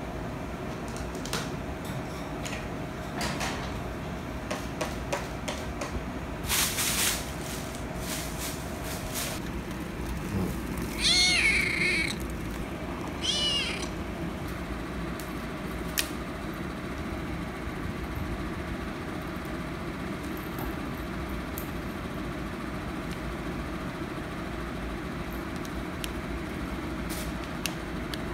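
Kitten meowing twice near the middle, high-pitched, the first call longer and louder than the second. A few light knocks and rustles come before them, over a steady background hum.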